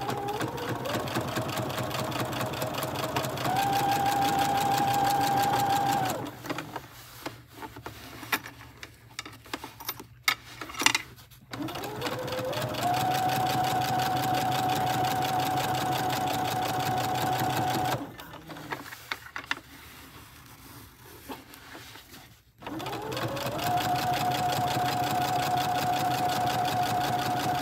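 Electric domestic sewing machine stitching a zipper onto quilted fabric in three runs. Each time the motor's whine rises to a steady speed and then stops. The runs start at the beginning, about twelve seconds in and about twenty-two seconds in, with quieter pauses and a few clicks between them.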